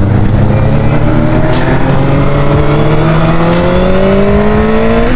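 Honda 600 cc inline-four motorcycle engine on its stock exhaust, pulling under acceleration, its pitch rising steadily and unbroken as the revs climb through a gear.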